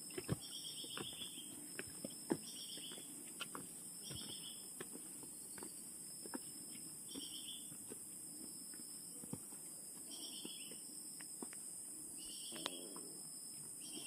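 Footsteps crunching and tapping on a stony forest trail under a steady high insect drone, with a short high chirping call recurring every few seconds.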